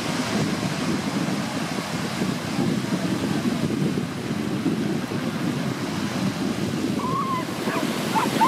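Wind buffeting the microphone over small waves washing on the beach, a steady rushing noise. About seven seconds in, a child's voice calls briefly.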